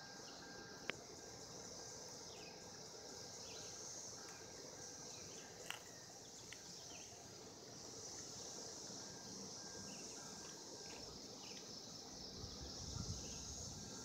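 Faint, steady high-pitched drone of a periodical cicada chorus, with scattered short chirps over it, a sharp click about a second in and another near the middle, and a low rumble near the end.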